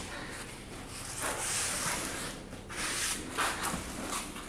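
A cloth dampened with ammonia is rubbed in several uneven strokes over a rough tile edge and the bathtub rim, making a scratchy rubbing hiss. This is the joint being degreased before silicone sealant goes on.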